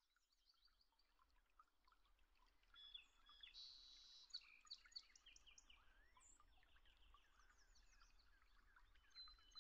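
Faint birdsong: many short chirps and twittering trills overlapping, fading in from silence at the start.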